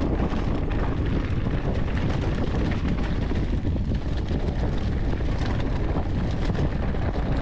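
Wind buffeting the handlebar camera's microphone as a mountain bike rolls fast down a dirt trail, its tyres crackling through dry fallen leaves and the bike rattling over the ground.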